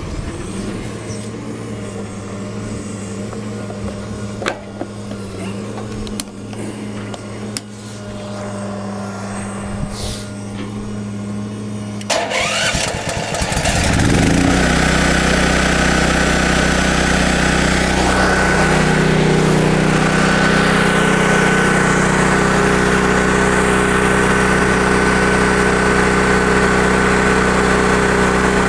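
A low steady hum with a few sharp knocks, then a gasoline portable generator with a Honda engine, primed with starting fluid, is cranked and catches about 13 seconds in. It settles into running loudly and steadily with a constant high whine.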